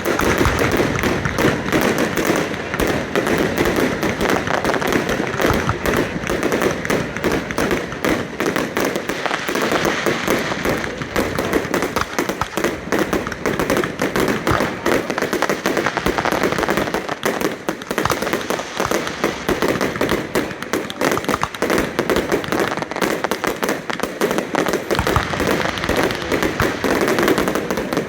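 Aerial fireworks going off in a dense, continuous barrage of bangs and crackle, with shells bursting many times a second without a break.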